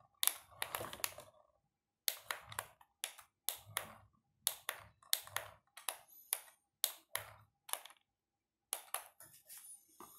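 A run of sharp clicks and taps, often in quick pairs or threes, about two to three a second, some with a soft thump under them, pausing briefly once near the end.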